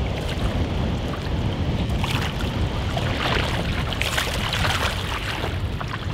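Wind buffeting the microphone, over the splashing of a hooked pink salmon thrashing in shallow water as it is drawn ashore, with a few sharper splashes about two to four seconds in.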